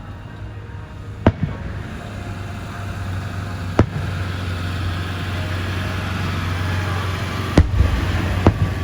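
Fireworks display: sharp bangs of shells bursting about a second in, near four seconds, and twice close together near the end, over a steady rushing noise that slowly grows louder.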